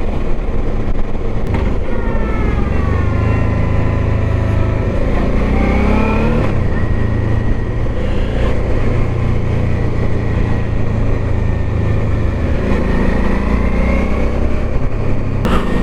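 Motorcycle engine running over a heavy low rumble, its whine falling and rising again a couple of times as the revs change.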